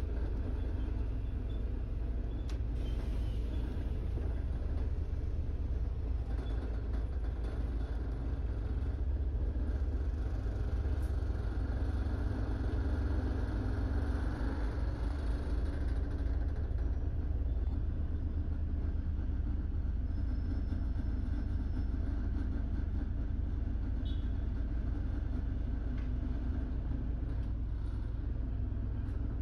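Double-decker bus riding in city traffic, heard from its top deck: a steady low rumble of engine and road noise that swells a little about halfway through.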